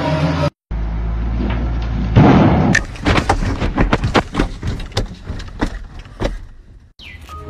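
A low rumble, then a loud rushing burst about two seconds in, followed by a quick, irregular run of sharp knocks and thumps.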